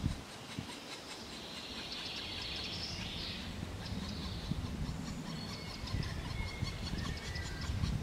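Black woodpecker nestlings begging inside the nest hole, a rasping, ticking chorus that comes in bouts. Thin whistled notes of another bird come in near the end, over a low rumble.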